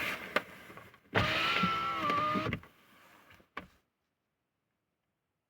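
A car's electric power window motor runs for about a second and a half with a steady whine that drops slightly in pitch just before it stops abruptly. Small clicks and rustling come before it.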